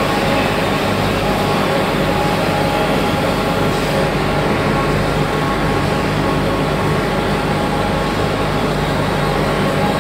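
Machinery of a sawdust briquette charcoal production line running steadily: a constant loud drone with several steady hum tones.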